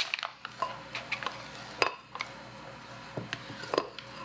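A spatula stirring and scraping thick buttercream filling in a glass measuring jug, with scattered knocks of the spatula against the glass.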